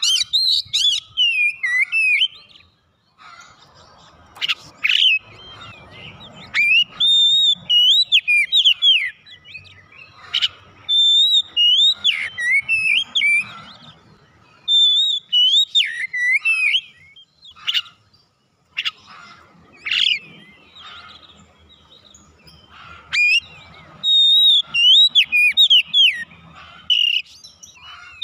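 Oriental magpie-robin singing: phrases of varied whistled notes that rise and fall, given in bouts with short pauses between them.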